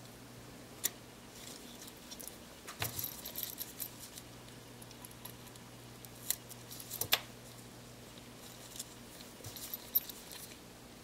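Faint, scattered small clicks and light scrapes of a thin metal pick working the ribbon-cable connector latches inside an opened Panasonic Lumix ZS19 compact camera, the sharpest clicks a little past the middle.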